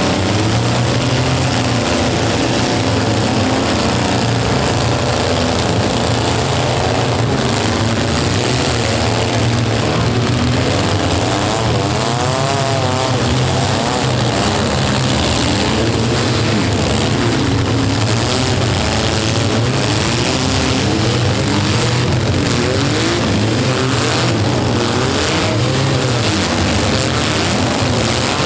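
Engines of several compact demolition-derby vans and pickups revving hard together, their pitches rising and falling continuously.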